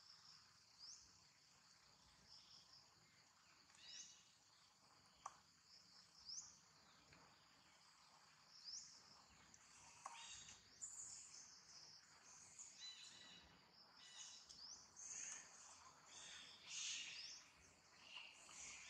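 Faint, steady high chirring of insects, with a short rising chirp every few seconds. In the second half come busier runs of high, squeaky calls.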